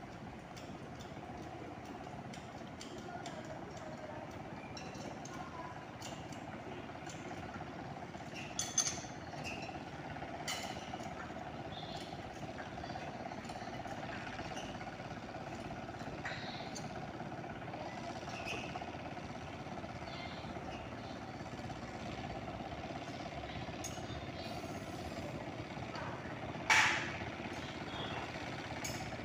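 Tractor engine running steadily under load while plowing a flooded rice paddy. Two short, sharp sounds stand out above it, about nine seconds in and again near the end.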